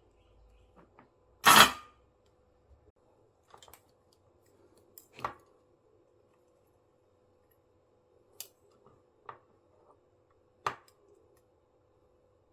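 Tools and small parts being handled during a repair: one loud, short noise about one and a half seconds in, then five or six separate clicks and taps, over a faint steady hum.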